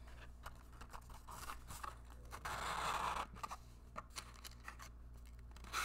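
Close-miked handling of a small paper box: scattered light clicks and scratches, with a longer rustling, tearing-like stretch about two and a half seconds in.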